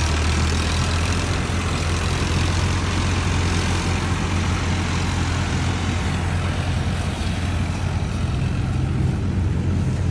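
Massey Ferguson 9500 tractor's diesel engine running steadily under load as it pulls a loaded grain trolley through a wet paddy field.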